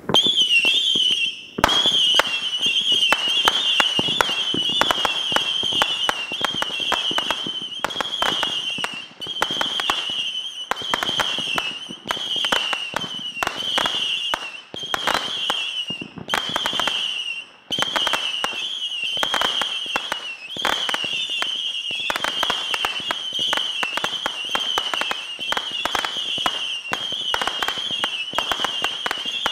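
750-shot Saturn missile battery firing its whistling rockets one after another in rapid succession: a near-continuous wavering, high whistle from overlapping rockets, peppered throughout with sharp pops and crackles. The barrage breaks off for a moment a few times.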